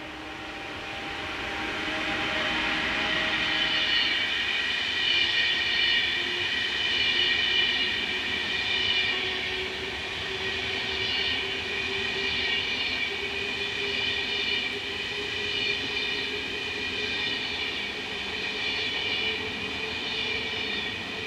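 Passenger coaches of a locomotive-hauled train rolling past on the rails, the wheel noise growing over the first few seconds and then holding steady. High squealing tones from the wheels ring above it throughout.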